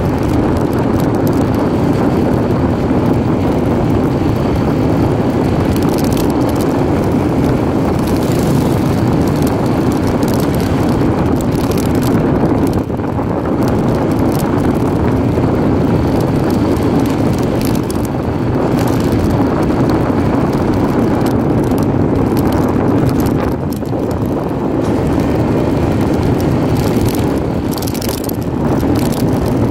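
Steady rush of wind and road noise from riding a motorcycle, the wind buffeting the phone's microphone, dipping briefly twice.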